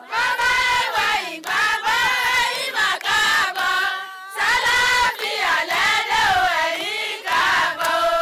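A group of women singing together, with hand claps.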